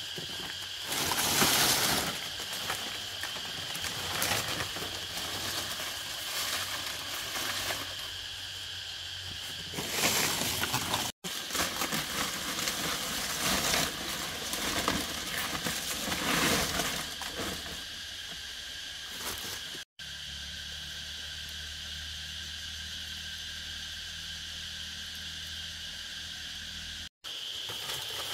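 Insects chirring steadily in a high, even drone, with irregular rustling and handling noises now and then. A low steady hum joins in for several seconds near the end.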